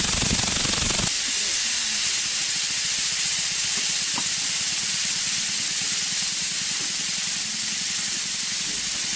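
Compressed air jetting from a mechanical swing-nozzle air blow gun: a steady loud hiss. For about the first second a low rumble from the swinging nozzle runs under it, then stops suddenly, leaving the hiss alone.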